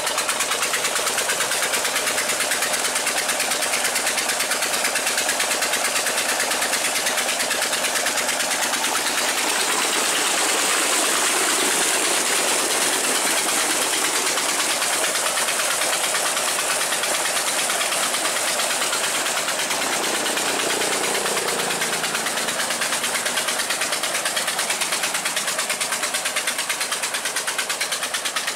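Single-cylinder Petter diesel engine running steadily under load with a fast, even chugging beat, driving a belt-driven tube-well pump. The rush of water pouring from the outlet pipe into a tank joins in, strongest in the middle.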